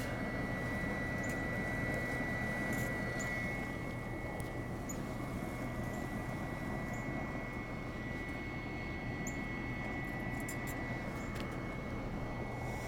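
Two BioLite wood-pellet camp stoves burning with their forced-draft fans on high: a steady whirring rush of fan and fire with a thin, steady high whine, and a few faint clicks.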